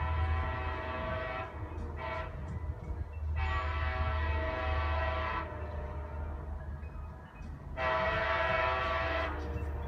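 Brightline passenger train's multi-tone horn sounding from down the line in a series of blasts: one ending about a second and a half in, a short toot, then two long blasts. A steady low rumble runs underneath.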